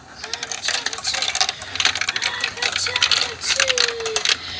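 Marbles clicking and clattering along a marble run, many quick hard clicks in an irregular stream.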